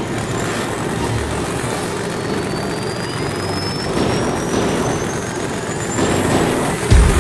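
Sci-fi starship engine sound effect starting up and running as a steady noisy rush, with a thin whine slowly rising in pitch. A few blaster-fire hits come through over it, the loudest a sudden blast just before the end.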